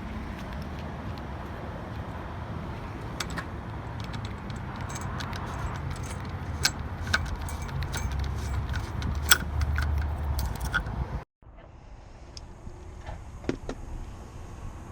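Small metallic clicks and jingles of keys and lock hardware being handled during a lock rekey, over a steady low rumble like passing traffic. The sound cuts out abruptly about eleven seconds in and comes back quieter, with a few more clicks.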